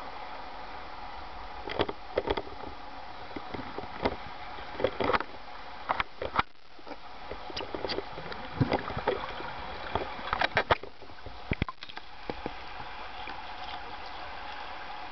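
Pool water heard through an underwater camera: a steady hiss with many sharp clicks and knocks scattered through it, mostly in the middle stretch.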